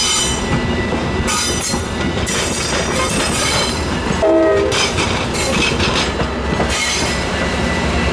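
Metra bilevel gallery commuter cars rolling past at close range: a steady rumble of wheels on rail with clicking over the joints and repeated high-pitched wheel squeals. A short pitched note stands out about four seconds in, the loudest moment.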